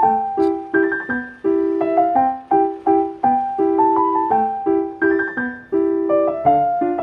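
Background piano music: a light, plucky melody of quick separate notes over a repeating chord pattern.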